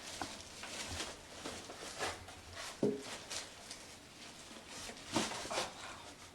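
Handling noise from packaging: plastic wrapping rustling and cardboard rubbing around a newly unboxed PC case, with a few light knocks.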